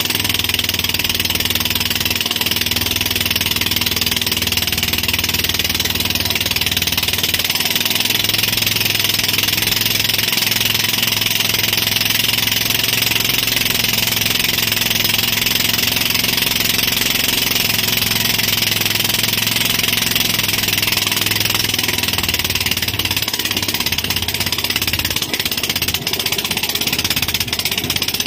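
Tow boat's engine running steadily at speed, under a constant rush of wind and water spray.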